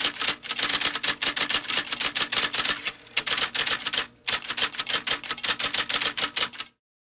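Electric typewriter being typed on rapidly: quick runs of key strikes with short pauses between them, cutting off suddenly near the end.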